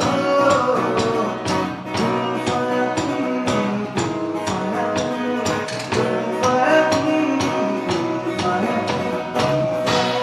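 Live band music: guitar and other instruments over a steady percussion beat, with a melody line that may be a voice.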